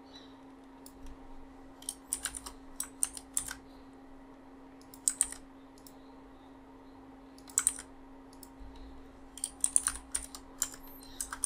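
Computer keyboard typing in short bursts of keystrokes with pauses between them.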